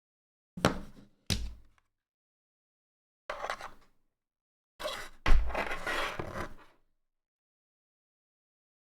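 Cardboard box and packaging being handled while unboxing: two sharp knocks, a short rustle, then a heavy thump followed by about a second and a half of scraping and rustling.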